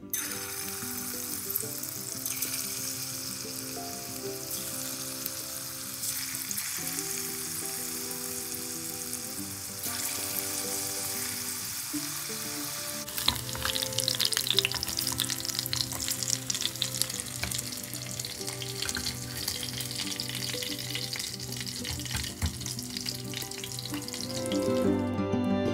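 Battered chicken pieces frying in hot oil: a steady sizzle that turns into dense crackling and popping from about halfway through. Background music plays underneath.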